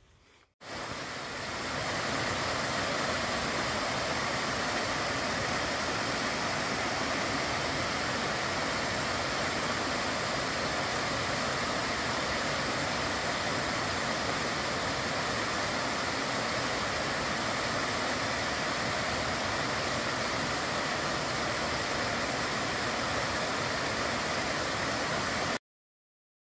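Water rushing and splashing down a small rocky waterfall and cascading stream as a steady, unbroken roar. It cuts off abruptly near the end.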